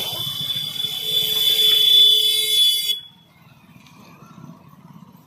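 Electric warning buzzer of a railway level-crossing gate sounding as one steady, shrill, high-pitched tone while the boom barrier comes down, signalling that the gate is closing for a train. It cuts off suddenly about three seconds in, leaving only faint motorcycle engines.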